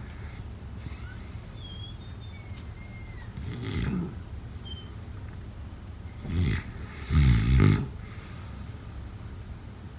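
A person snoring, three snores in a row: one a little before the middle, a short one after it, then the loudest, a longer fluttering snore in two swells about three quarters of the way in.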